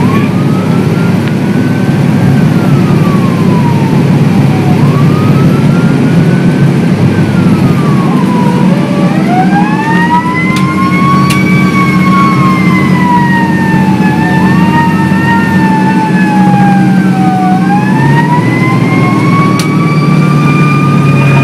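Fire engine siren wailing in slow rises and falls over loud engine and road rumble, heard from inside the truck's cab. About eight seconds in, a second wailing tone overlaps the first.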